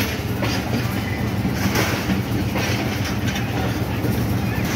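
Passenger coaches of a departing express train rolling past, wheels clacking over the rail joints about once a second over a steady rumble.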